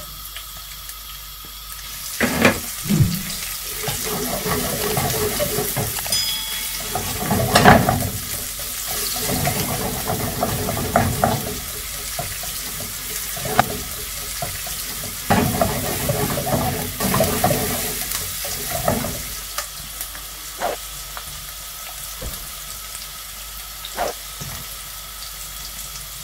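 Sliced onions sizzling in hot oil in a frying pan, stirred with a silicone spatula that knocks and scrapes against the pan now and then.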